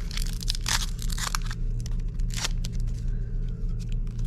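Foil Pokémon booster pack wrapper being torn open and crinkled: a few crackling rips in the first second and a half and another about two and a half seconds in, over a steady low hum.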